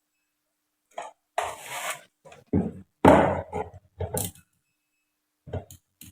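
Irregular knocks, clatter and short scraping noises from tools and parts being handled on a workbench, in several quick bursts, the loudest about three seconds in.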